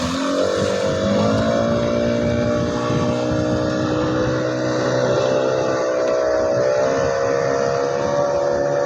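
New speedboat engine rising in pitch over the first second, then running steadily at high revs.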